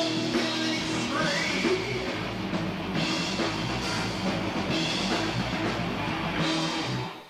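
Live rock band playing, recorded in a basement: drum kit and loud amplified instruments. The music drops away abruptly about seven seconds in as the recording ends.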